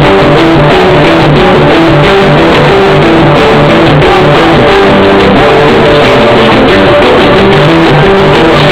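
Loud music with guitar and a repeating bass line blaring from a street sound system. The recording is overloaded and distorted.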